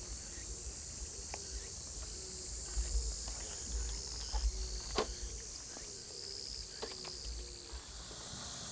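Steady high-pitched chorus of summer insects chirring, with a few faint clicks.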